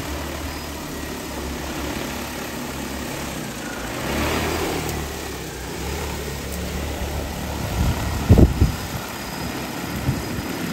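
DJI Agras T40 agricultural spray drone's rotors running with a steady loud whir as it comes in low and sets down. About eight seconds in, its downwash buffets the microphone in heavy low rumbles.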